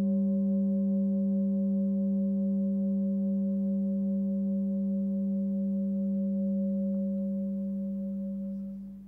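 Hand-forged Sun Moon singing bowl, 19.8 cm, tuned to 193 Hz (G), ringing on in a steady hum with several higher overtones above it. Near the end a hand touches the rim and the tone dies away quickly.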